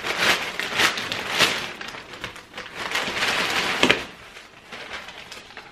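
Parcel packaging rustling and crinkling as it is handled, paper and plastic in a quick run of rough scrapes that die down about four seconds in.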